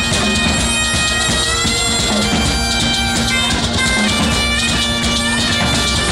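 Great Highland bagpipe playing a tune over its steady drone, with a band of large drums and a frame drum beating along.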